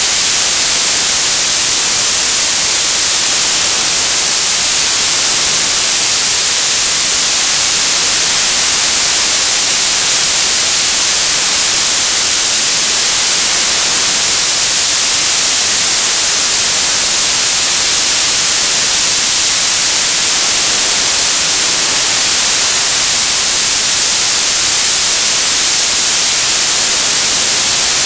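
Television static: a loud, steady hiss with no change, weighted toward the high end.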